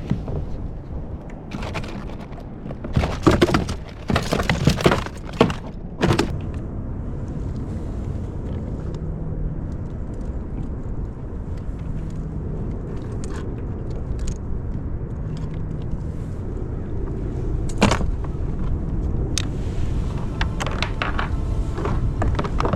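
Sharp knocks and clatter of fishing gear and a just-caught sand bass being handled on a kayak, with a loud cluster of them a few seconds in and scattered clicks later, over a steady rumble of wind and water.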